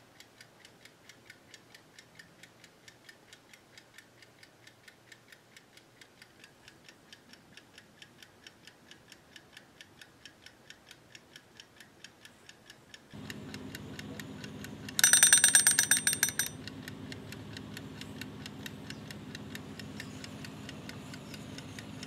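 Mechanical wind-up kitchen timer ticking steadily, about three ticks a second. About 15 s in, its bell rings rapidly for a second and a half, marking the 30 minutes that were set. A steady low hum comes in just before the ring.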